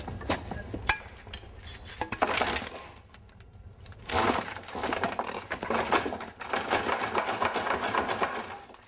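Metal clinking and clattering: a few sharp clinks, then a dense stretch of rattling clatter starting about four seconds in.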